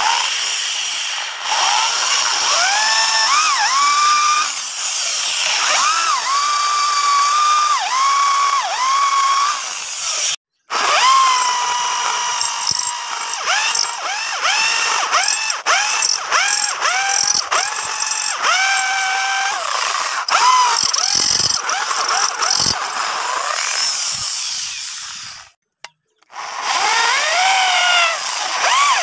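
Electric drill boring through the steel tang of a cleaver made from an old leaf spring. The motor's whine repeatedly sags in pitch as the bit bites into the metal and recovers as the load eases. The sound breaks off briefly twice.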